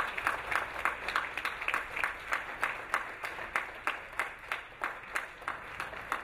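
Audience applauding, with sharp claps coming about three to four a second and slowly dying down.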